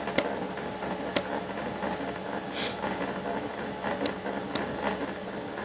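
Milling machine table power feed running steadily, moving the table under the indicator, with a few light hammer taps on the side of the vise as it is nudged into alignment with the table.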